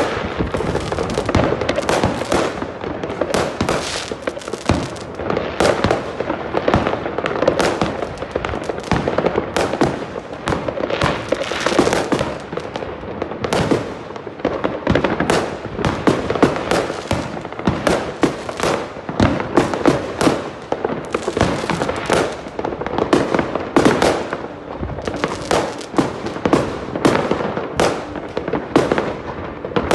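A consumer fireworks battery (cake) firing a dense, unbroken string of shots and bursting bangs, many a second, throughout.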